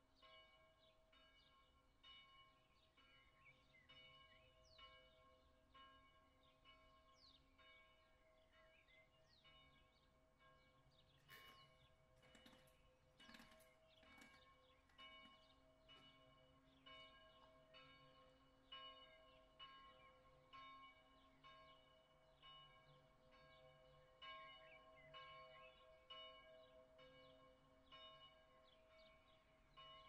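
A church bell ringing the noon hour, heard faint and from a long way off, its ringing going on steadily without a break. Short high chirps come and go over it, and a brief cluster of clicks sounds about halfway through.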